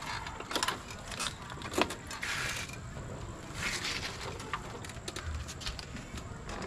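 Avia Crown e-bike being ridden: its body and fittings rattle and click irregularly, with two short rushes of noise and a faint steady high whine.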